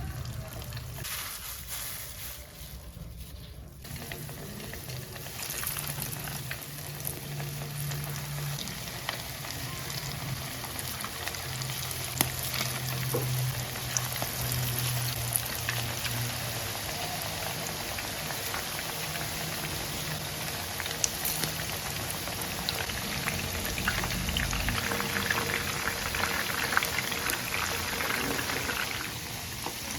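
Food frying in hot oil, a steady sizzle with many small crackles and pops that grows fuller about four seconds in.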